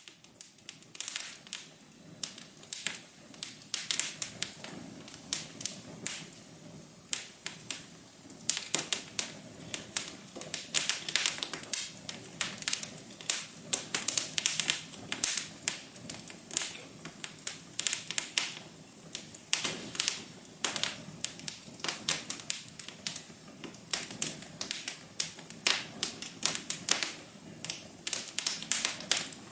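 Wood fire crackling: many irregular sharp pops and snaps, several a second, over a soft steady background hum.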